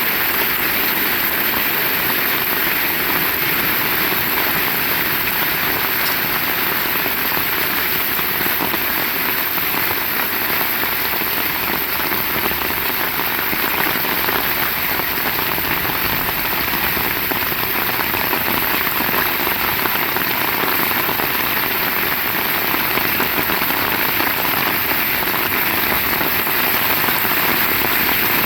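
Heavy rain falling steadily, an even, unbroken wash of sound with no let-up.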